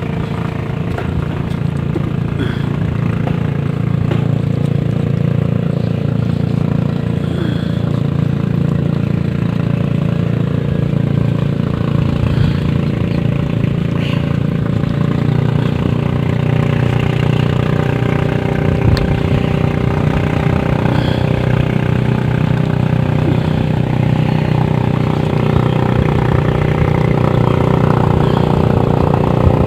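A small engine idling steadily, its low hum unchanging, with a few faint clicks over it.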